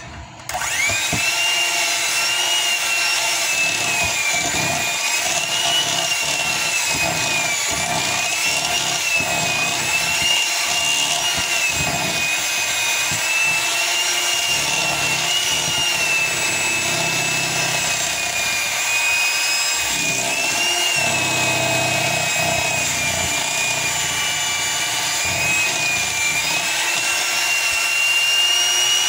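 Electric hand mixer switched on about half a second in and running steadily, its beaters whipping a thick no-bake cheesecake filling. The motor's whine wavers slightly in pitch as the load shifts.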